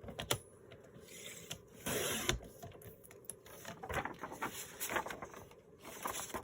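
Paper being handled and trimmed: rustling and scraping of sheets with scattered clicks from the cutting tool, the busiest stretch about two seconds in.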